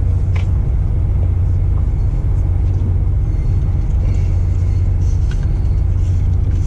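Steady low rumble of an idling engine, with a couple of faint clicks, one about half a second in and one near the end.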